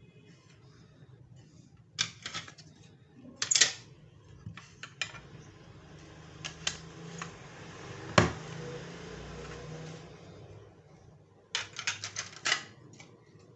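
Plastic toy train track pieces being handled, a scattered run of sharp clicks and clacks. The loudest come about three and a half and eight seconds in, with a quick cluster near the end and a soft steady noise for a few seconds in the middle.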